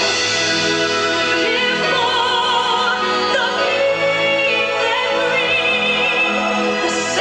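Music: voices singing held notes with vibrato over sustained orchestral accompaniment.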